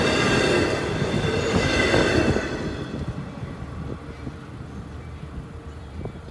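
LIRR bilevel C3 passenger coaches rolling past on the rails, wheel and rail noise with steady high-pitched ringing tones over a rumble. It fades sharply about two and a half seconds in as the last car clears, leaving a low, quieter hum.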